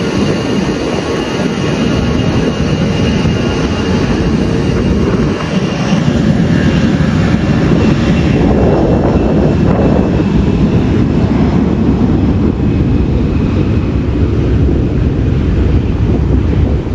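Jet airliner taking off: its engines run at takeoff power as a continuous loud rumble with a faint high whine, growing louder about six seconds in.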